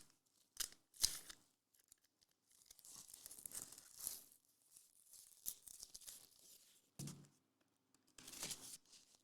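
Packaging being torn open and crinkled by hand: a few sharp rips, then quieter crackling and rustling.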